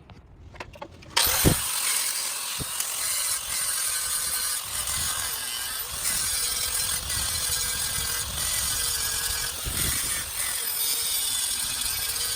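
Grinder grinding down the steel of the axle to seat a weld-on upper control arm bracket: starts about a second in with a steady, high hissing grind.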